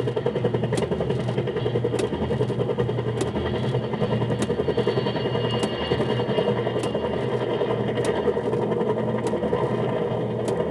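Bafco helicopter kiddie ride running: its motor and drive mechanism give off a steady mechanical drone, with a light click about every second and a quarter as it rocks.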